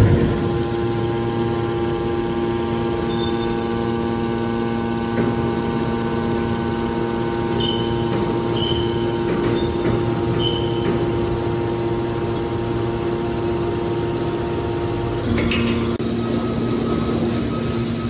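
Hydraulic scrap-metal baler's power unit running with a steady hum of several fixed tones. The hum shifts briefly about three-quarters of the way through.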